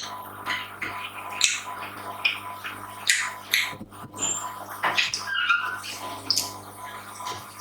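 Close-miked eating sounds: chewing and wet mouth sounds in short, irregular bursts, over a faint steady electrical hum.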